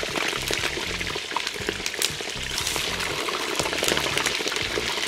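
Chicken pieces deep-frying in hot vegetable oil in a cast-iron kazan: a dense, steady sizzle and crackle of bubbling oil. Background music with a low bass line runs underneath.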